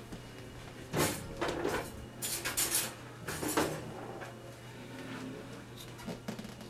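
Hands handling small hard parts of a DLP TV's LED light module: several short scrapes and clatters, clustered in the first four seconds, over a faint steady hum.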